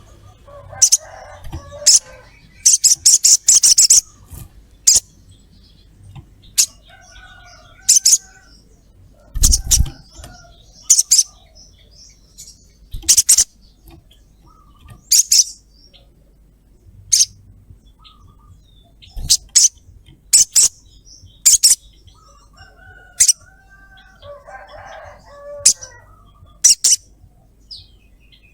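Olive-backed sunbird giving short, sharp high-pitched "cret cret" calls at irregular intervals, with a quick chattering run of them about three seconds in.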